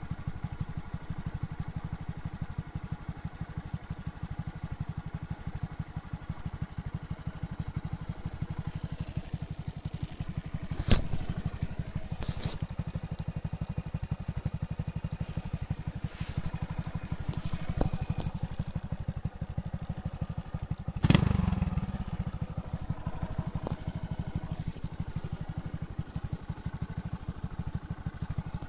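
Honda Grom's 125cc single-cylinder engine idling steadily, with a few sharp knocks or clicks over it, the loudest about a third of the way in and again about three-quarters in.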